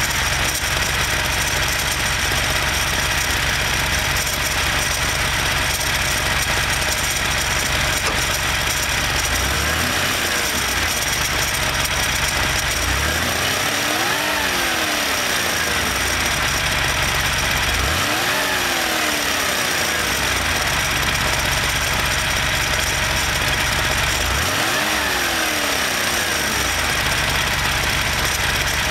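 Porsche engine idling with a ticking noise, revved up and let fall back four times; the ticking tends to go away at the higher revs.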